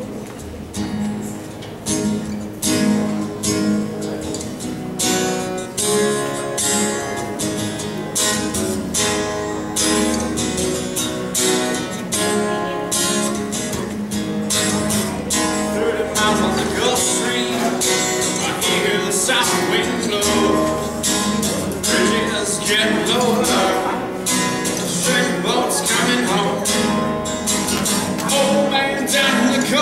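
Acoustic-electric guitar strummed in a steady rhythm, chords ringing between the strokes.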